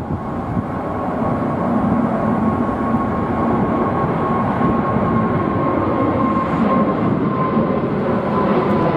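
Boeing 777-300ER's two GE90-115B turbofans at climb thrust just after takeoff, passing overhead. It is a steady, loud jet roar that builds over the first couple of seconds, with a thin fan whine on top that drifts slowly down in pitch as the aircraft passes.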